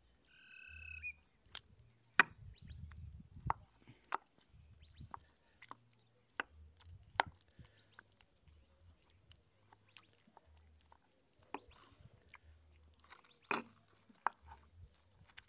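Stone pestle (tejolote) grinding roasted tomatoes and chiles in a stone molcajete: irregular knocks and clicks of stone on stone as the salsa is mashed, the sharpest strikes about 2 seconds in and near the end.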